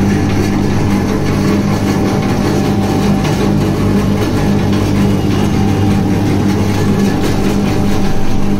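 Roll ice cream machine running: the motor turning its large ice-filled roller drum, a steady low hum.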